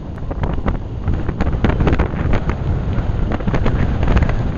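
Wind buffeting the microphone of a moving motorcycle: a loud, constant low rumble broken by frequent, irregular sharp pops.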